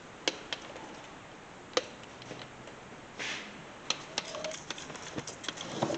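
Scattered light clicks and knocks from hands handling things around the engine, with one short spray from a spray bottle of soapy water about three seconds in.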